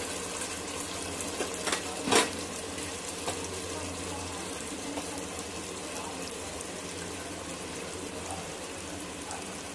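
Tomato masala with kasuri methi sizzling steadily in oil over a low flame, the oil bubbling on top as a sign that the masala is fully fried. Two short knocks about two seconds in.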